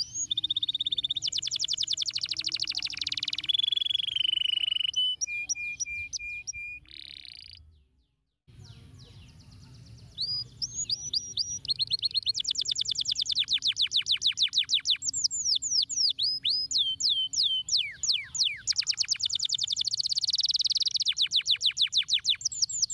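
Domestic canary singing: fast rolling trills of rapidly repeated notes, mixed with whistled notes and quick downward slurs. The song breaks off briefly about eight seconds in, then goes on.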